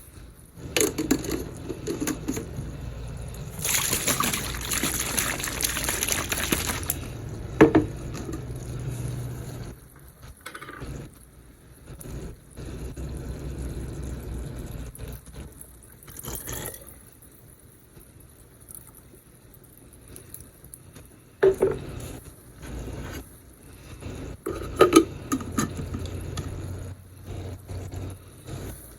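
Water running and pouring for about three seconds as it is added to a pot of spaghetti sauce, followed later by a few sharp clinks of cookware.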